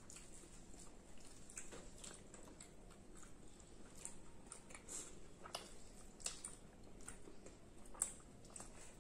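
Faint chewing and mouth sounds of two people eating fried rice and Manchurian by hand, with scattered small clicks, the sharpest about eight seconds in.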